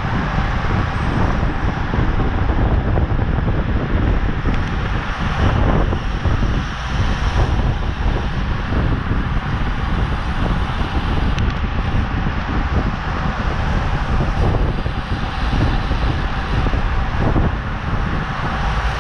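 Steady wind noise buffeting the microphone, with tyre and road noise, from a road bike riding at race speed.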